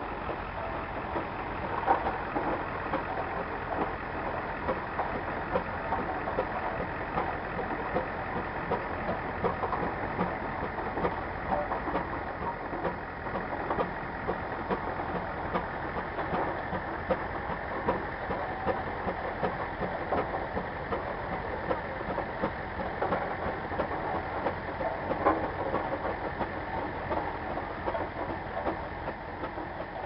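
Old engine-driven machinery running steadily with a dense, continuous clatter.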